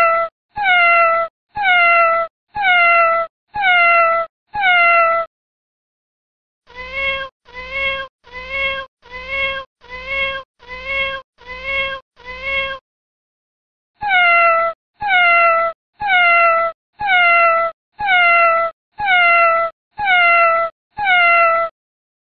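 Cat meows repeated in a steady, even rhythm, each call cut off sharply like a looped recording. A run of six falling meows is followed by a pause, then a run of lower, shorter meows, another pause, and the falling meows again.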